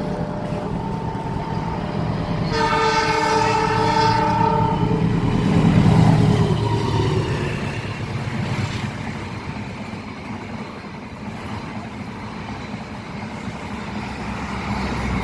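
A train horn sounds once, a steady chord lasting about two and a half seconds, as a train passes close by. The heavy rumble of the passing train swells to its loudest just after the horn, then fades away.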